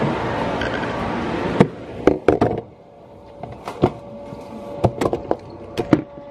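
Handling noise from the recording phone: a string of sharp knocks and rubs as it is moved and covered. Steady indoor background noise goes dull and quieter after about two seconds.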